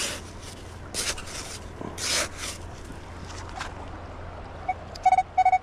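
A small hand shovel scrapes into sand a few times. Near the end, a Nokta The Legend metal detector gives a few short, pitched beeps, signalling a metal target in the dug spot.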